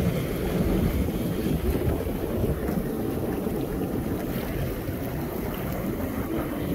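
Wind buffeting the microphone over a steady low rumble of a watercraft running across choppy lake water.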